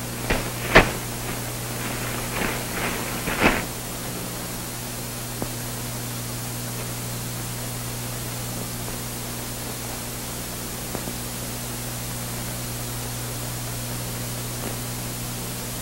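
Steady hiss and low hum of an old 1940s film soundtrack, with a few short knocks and faint brief sounds in the first few seconds.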